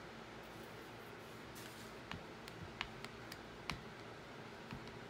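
Irregular light clicks and taps of fingertips and a small plastic card on a phone's screen and clear case while a screen protector is pressed down, starting about two seconds in after a soft rustle.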